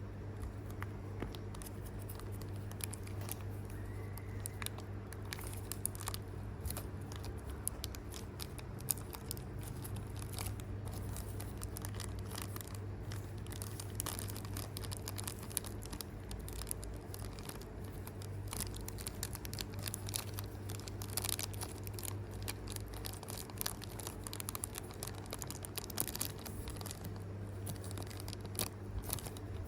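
Plastic packaging crinkling and tearing as a small packet is handled and opened, a dense run of small irregular crackles and clicks over a steady low hum.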